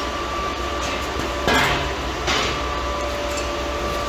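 Two short metallic clanks, about a second and a half and two and a quarter seconds in, from plasma-cut sheet-steel grill parts knocking together as they are handled, over a steady shop hum.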